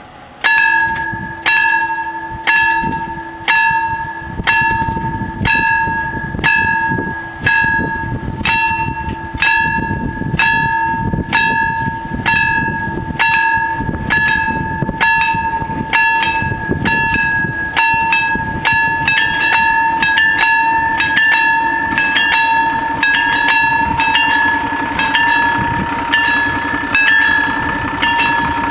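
Warning bells of an Italian FS 64 level crossing start ringing suddenly about half a second in, as the crossing activates: evenly repeated strikes a little faster than one a second, each leaving a ringing tone. Later on the strikes come closer together as the crossing's four bells fall out of step, with a low steady hum beneath.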